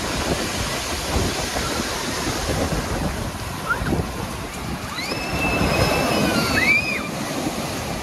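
Rough sea surf breaking and washing up onto a pebble beach, with wind buffeting the microphone. About five seconds in, a high, drawn-out cry rises and holds for about two seconds over the surf.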